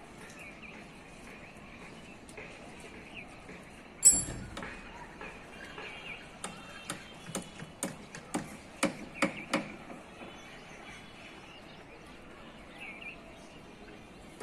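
Town ambience with birds chirping now and then. About four seconds in comes a sudden loud bang with a brief ring, and a few seconds later a run of a dozen or so sharp, irregular knocks that stops after about three and a half seconds.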